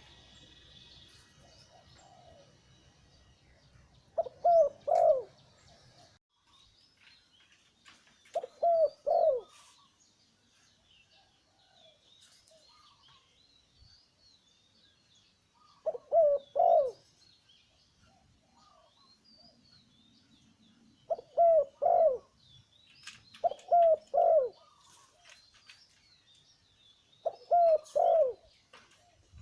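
Male zebra dove cooing in short phrases of two or three notes, six phrases spaced several seconds apart. Faint chirping of small birds in the background.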